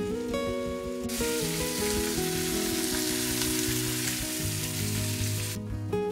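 A whole raw chicken sizzling as it sears in a hot dry nonstick wok with no oil, the hiss starting about a second in and cutting off suddenly near the end. Background acoustic guitar music plays throughout.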